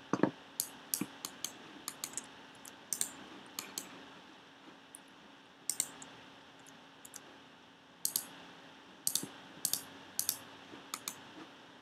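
Computer keyboard keys clicking irregularly, singly and in quick runs of two or three, with a quieter gap about four to five and a half seconds in.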